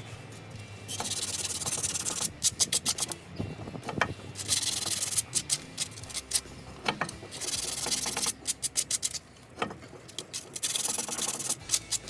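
Hand wire brush scrubbing rust off a car's steering knuckle where the wheel bearing hub seats, in spells of quick back-and-forth strokes with short pauses between. The surface is being cleaned before a new hub is fitted.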